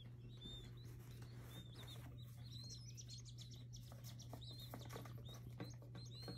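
Baby chicks peeping faintly: many short, high chirps, each rising and falling, coming in scattered bursts over a steady low hum.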